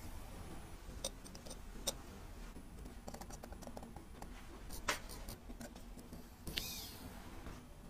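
Faint, irregular small clicks and taps of steel tweezers working on a mechanical watch movement held in a metal movement holder, with a brief scrape about six and a half seconds in, over a low steady hum.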